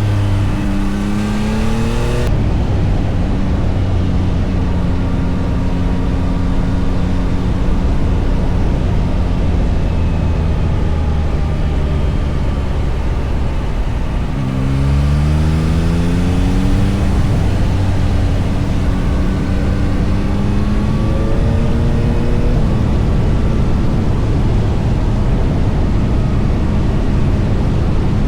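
Yamaha MT-09 SP's three-cylinder engine heard from the rider's position on the move. It revs up in the first couple of seconds, runs fairly steadily, then pulls hard through the gears again about halfway through and once more near 20 seconds.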